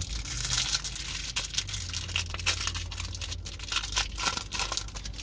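Foil wrapper of a Pokémon booster pack being torn open and crinkled in the hands: a dense run of crackling and rustling.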